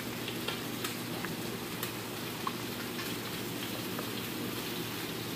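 Cream and Parmesan sauce heating in a pan over low heat: a steady soft sizzle with scattered small pops and ticks.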